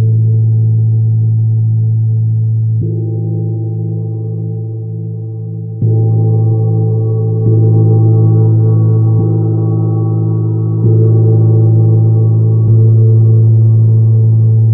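Large gong struck softly with a fleece-headed mallet, six strokes about every two to three seconds. Each stroke is a deep hum with a ring of higher overtones that carries on under the next stroke.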